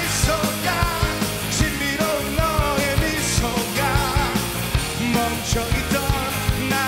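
A live rock band of drums, bass, electric guitars and keyboard playing, with a male singer singing the lead vocal over it.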